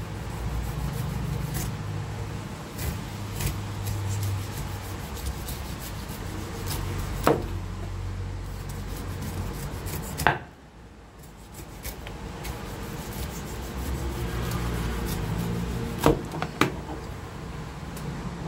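A cleaver shaving the rough skin off a whole pineapple, with a steady rasping scrape, and a few sharp knocks of the blade on the wooden cutting board, one around the middle and two close together near the end. It goes quieter for a moment just after the middle.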